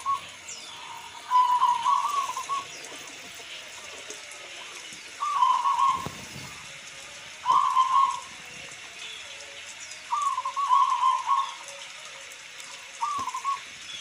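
Zebra dove (perkutut) cooing: short groups of rapid, wavering coo notes, five full phrases spaced every two to three seconds, plus the tail of one at the very start.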